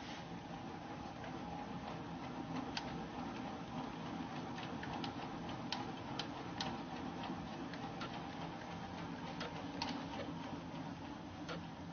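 Irregular sharp clicks from the blade-tilt handwheel of a sliding panel saw being turned by hand to set the blade to 90 degrees, over a steady low hum.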